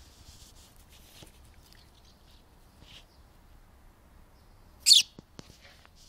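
House sparrow fledgling giving one loud, short, high chirp about five seconds in, with a fainter chirp about three seconds in and a few faint ticks.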